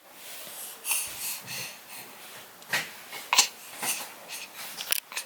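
A baby's excited, breathy huffs and wheezy breaths, a string of short bursts.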